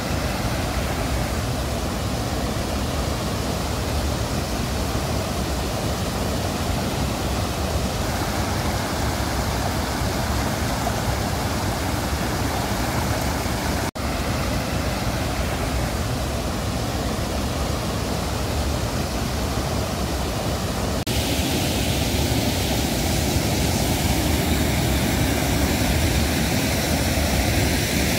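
Muddy floodwater spilling over a concrete weir and rushing through rocky rapids: a steady, loud roar of water. There is a short dropout about halfway through, and the roar turns brighter and a little louder in the last several seconds.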